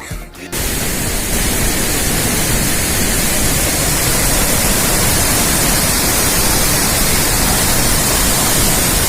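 Waterfall pouring in a loud, steady rush of water, cutting in abruptly about half a second in.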